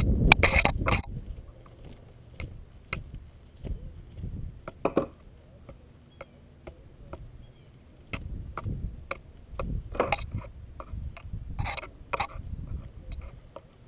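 Scattered clicks, knocks and rattles of fishing gear and a landing net being handled in a Wilderness Systems Ride 115 plastic sit-on-top kayak, after a loud rumble in the first second.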